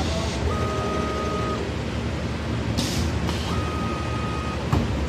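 High-frequency webbing embossing machine running under a steady machine hum. Short sharp hisses of air come from its pneumatic press cylinders, and twice a steady high tone lasts about a second. A sharp click comes near the end.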